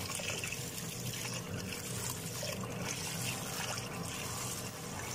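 Water trickling and swishing as raw rice is gently rinsed by hand in a pot; a steady, fairly quiet sound.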